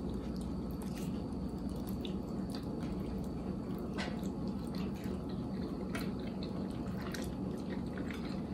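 Eating at close range: wet chewing and mouth sounds, with scattered sharp clicks of a fork against a takeout food container, over a steady low hum.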